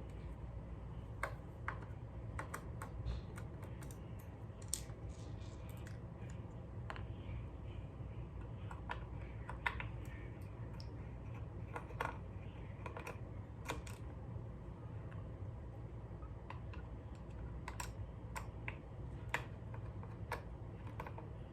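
Irregular light clicks and taps of hand work on a bass guitar being taken apart: a screwdriver and small metal parts being handled, over a steady low hum.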